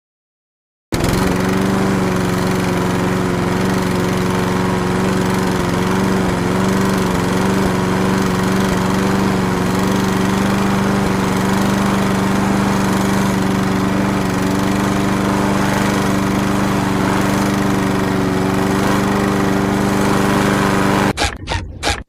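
A small engine or motor running steadily and loudly after starting abruptly about a second in, then breaking into quick stuttering pulses near the end.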